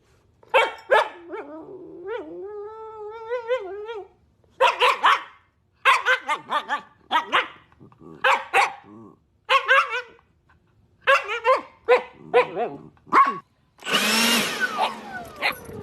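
A dog barking again and again in short barks, with one long wavering cry about a second and a half in. Near the end a loud, rough burst of noise lasts about a second and a half.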